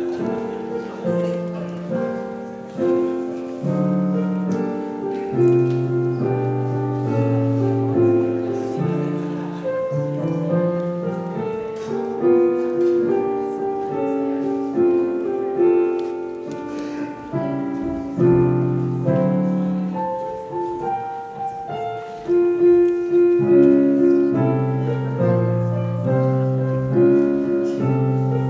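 Solo piano playing a slow offertory, chords under a melody, each note ringing and dying away.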